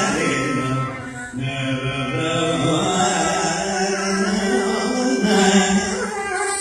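Carnatic vocal music: a male singer sings a gliding, ornamented line, with violin and mridangam accompaniment.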